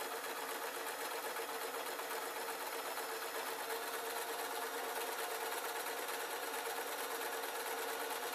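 Electric sewing machine stitching continuously at a steady speed, running a seam through lightweight fabric.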